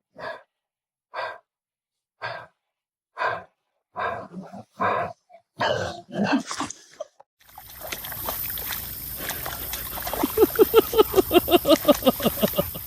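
A dog barking in short single barks, about one a second. Then, over a steady hiss, a fast run of short pitched huffing breaths, about six or seven a second.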